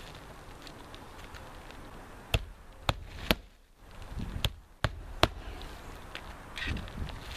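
Hammer driving roofing nails into asphalt shingles: two runs of three sharp strikes, the second run about a second after the first.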